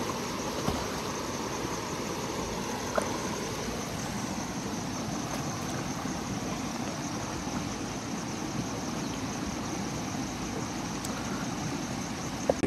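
Steady rush of river water, with one light knock about three seconds in.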